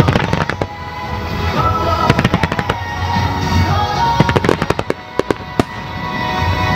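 Fireworks going off: rapid clusters of bangs and crackles from fan-shaped volleys of comets and bursting aerial shells, once at the start, again about two seconds in, and most densely between about four and five and a half seconds. Music plays underneath.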